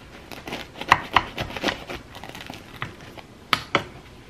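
Kitchen knife sawing through the crisp baked crust of a homemade chicken bake topped with browned Parmesan: a run of sharp crunches, loudest about a second in, then two sharper cracks near the end.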